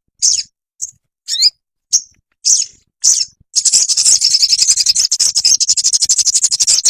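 Sogon (sunbird) song: a string of short, high, sharp call notes about every half second, then about three and a half seconds in, a long, rapid, high trill.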